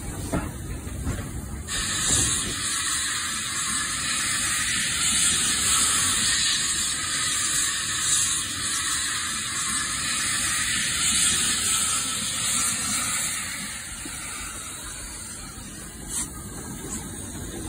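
Simulated steam hiss from a sound-fitted model Midland 4F steam locomotive. It starts abruptly about two seconds in and dies away a few seconds before the end, over a low running rumble from the model on the track, with a few sharp clicks near the start and near the end.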